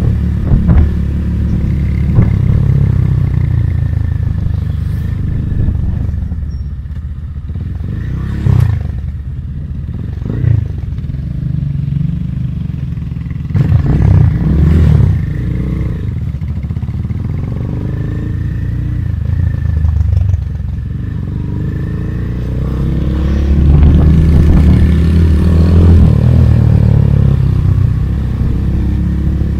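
GPR 250 motorcycle engine running on the move, its pitch rising and falling with the throttle, loudest about two-thirds of the way through. A few sharp knocks come between about eight and fifteen seconds in.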